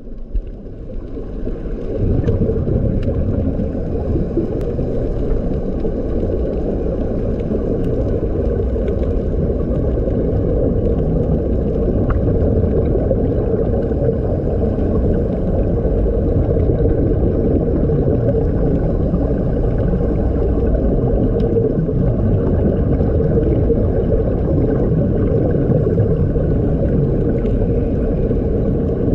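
Steady, muffled underwater rumble and bubbling as heard through a waterproof camera housing, from air streaming out of sea-walking helmets, building up over the first two seconds and then holding, with a few faint clicks.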